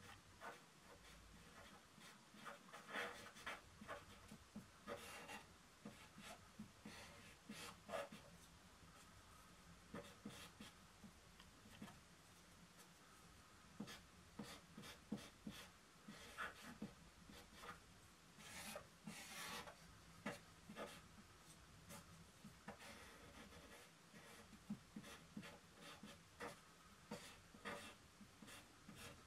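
Faint, irregular strokes of a brush working ink on drawing paper, short scratchy sweeps, with a run of louder ones about two-thirds of the way through.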